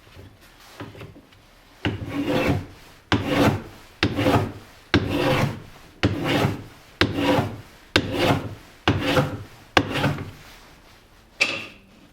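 A hand tool worked across walnut in repeated strokes, about one a second, each starting sharply and fading, ending with a last stroke near the end.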